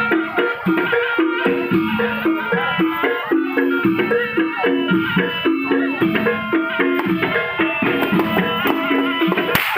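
Javanese gamelan accompaniment for a barongan dance: a fast repeating pattern of pitched metal notes over drums and clacking percussion, with a steady beat. A single sharp click near the end.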